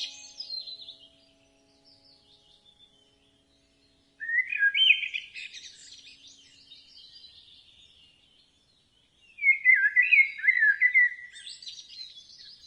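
A songbird singing: two loud phrases of rapid, up-and-down chirping notes, one about four seconds in and one about nine seconds in, with quieter twittering between.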